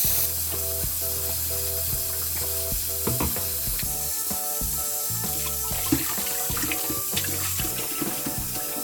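Running water hissing steadily as a small dog is washed in a bath, under background music of short repeated notes over a steady bass.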